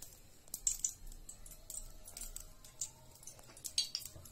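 Cooking oil pouring in a thin stream from a plastic bottle into an empty metal kadai, with faint, scattered clicks and ticks.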